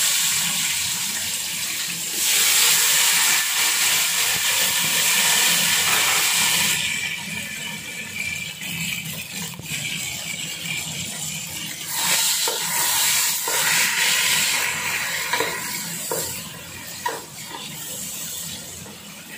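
Chopped tomatoes going into hot oil in a pot, sizzling loudly as they land at the start and again about two seconds in. The sizzle eases after about seven seconds and flares up in shorter bursts as they are stirred with a wooden spoon, with light knocks of the spoon.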